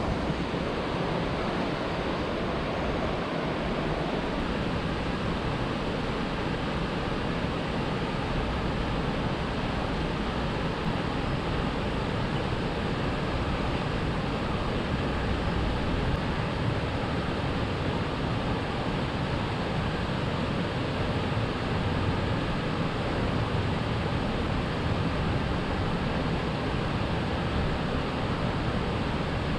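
Steady outdoor background noise, a constant hiss and low rumble with no distinct events.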